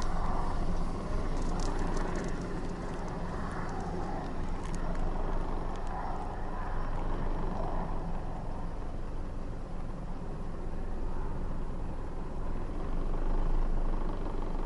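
Car engine idling steadily, a constant low hum.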